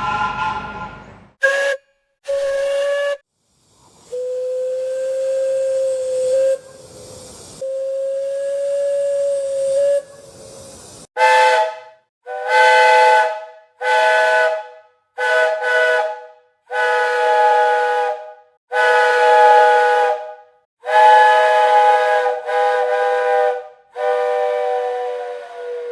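Steam locomotive whistles with steam hiss. There are two short toots and two long single-note blasts, then, from about 11 seconds in, a string of about ten short blasts on a whistle sounding several notes together.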